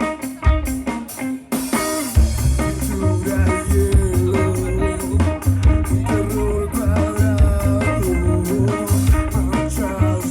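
Live band playing an instrumental passage: guitars over bass and drums, with the full band crashing in about a second and a half in after a stretch of steady drum beats.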